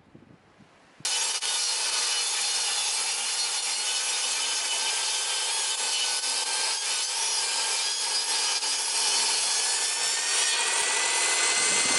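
Power saw cutting through wood, starting abruptly about a second in and running steadily.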